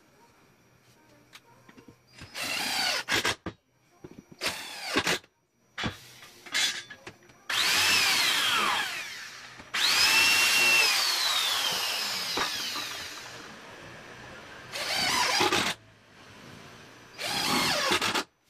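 Hand-held power drill drilling into a plywood board in repeated short bursts. Its motor pitch climbs as the trigger is squeezed and sinks as it is let go. The longest, loudest runs come in the middle.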